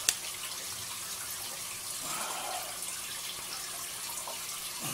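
Steady hiss of running water, with a sharp click right at the start and a brief soft rustle of plastic wrap about two seconds in.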